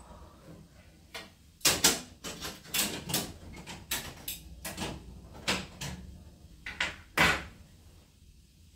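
Seeds being cracked open between the teeth and chewed: a string of short, sharp cracks at irregular intervals, the loudest about two seconds in and near the end.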